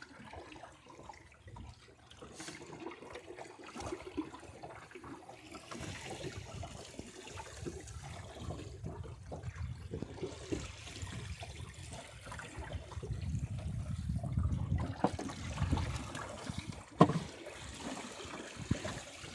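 Water trickling and lapping along the hull of a small sailboat running downwind, over a low rumble that swells in the second half. One sharp knock near the end.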